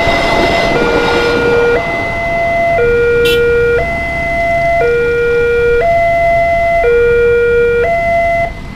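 Level-crossing warning sounder giving its two-tone alarm, switching between a higher and a lower tone about once a second, and stopping abruptly near the end. The noise of the passing train fades under it in the first second or two, and a single sharp tick comes about 3 s in.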